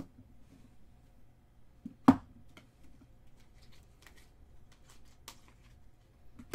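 Trading cards and plastic card holders handled and stacked on a tabletop: scattered light clicks and taps, with one sharp knock about two seconds in.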